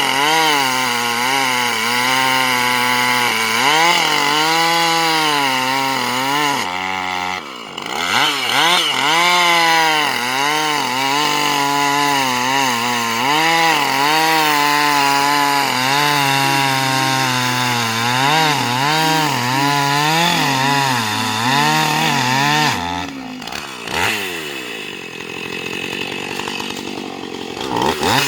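Husqvarna two-stroke chainsaw cutting into a pine tree, its engine pitch rising and falling as the chain bogs and frees in the wood. It eases off briefly about seven seconds in and again near the end, running lower for a few seconds before revving back up.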